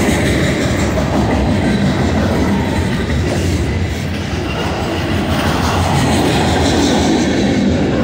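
Freight train's boxcars rolling past close by: steady rumble of steel wheels on rail, with wheels clacking over the rail joints.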